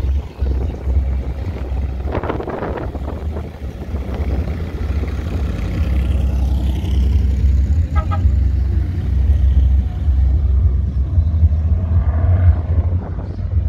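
Classic cars driving slowly past on the road. The loudest passage is an early-1930s hot rod coupe with an exposed engine going by in the second half, with a steady low rumble underneath.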